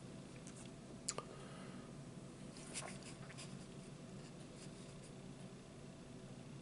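Mostly quiet: faint small clicks and handling noises as a shake is sipped through a straw from a foam cup, with a couple of sharper clicks about a second in.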